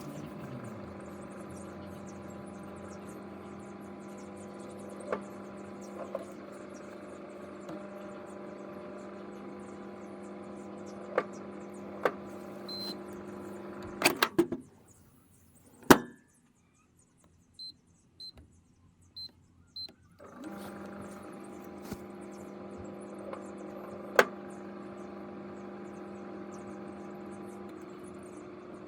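Microwave oven with metal energy-drink cans inside, running with a steady hum and occasional sharp snaps. It stops about 14 seconds in. After a click come four short high beeps from the keypad, and the oven starts humming again about 20 seconds in.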